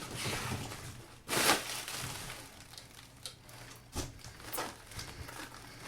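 Packing material being pulled out of a cardboard box: irregular rustling, crinkling and handling knocks, the loudest about a second and a half in.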